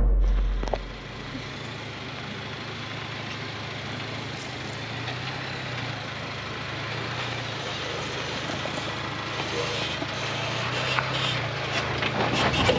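2023 Chevy Colorado ZR2 pickup crawling along a rough dirt forest road: a steady low engine hum under tyre and gravel noise, with a few sharp crunches of rocks near the end. A deep boom at the very start fades out within about a second and a half.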